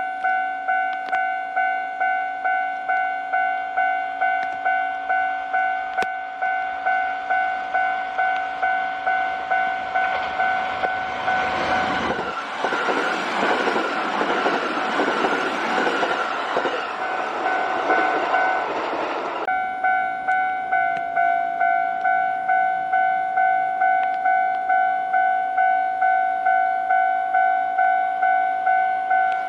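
Japanese level-crossing electronic alarm bell ringing steadily, just under two strikes a second. From about ten seconds in, a Kintetsu Osaka Line train rushes over the crossing with a rhythmic clatter of wheels; the train noise stops abruptly after about nine seconds while the bell keeps ringing.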